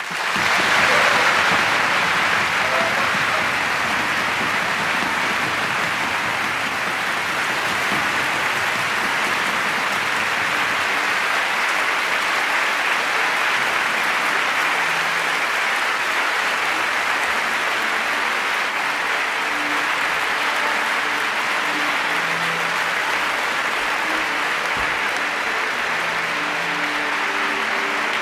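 Large theatre audience applauding steadily, breaking out loudly at once as the music ends and holding at an even level throughout.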